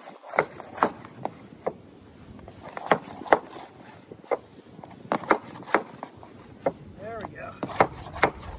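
A claw hammer striking a wooden tapping block laid on plywood: about a dozen sharp wooden knocks in uneven groups with short pauses, knocking a plywood roof sheet into place.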